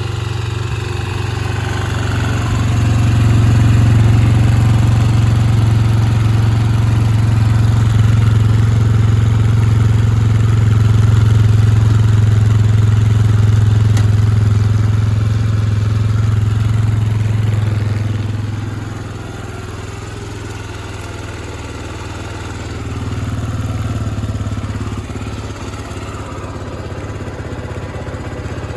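Honda XLR250R's single-cylinder four-stroke engine running steadily at idle. It runs louder for most of the first two-thirds, eases down about two-thirds through, then picks up briefly.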